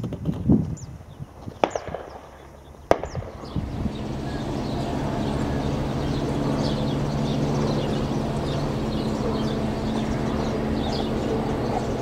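Two sharp cracks of distant shotgun fire a little over a second apart, the second louder. They are followed by steady outdoor noise with a constant low hum and small birds chirping.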